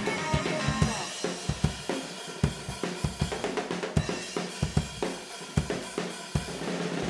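Rock drum kit played busily, kick drum, snare and cymbals hitting in quick, uneven fills, with guitars and bass sustaining underneath, as an instrumental post-rock band plays live.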